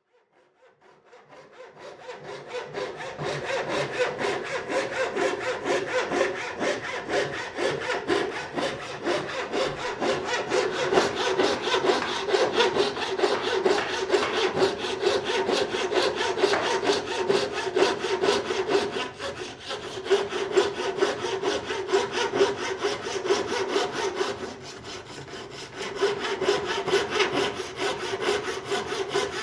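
Foot-powered treadle saw with a narrow reciprocating blade cutting a curve through a thin wooden board, a rapid, steady rasping of many strokes a second. It fades in at the start and eases off briefly twice in the second half.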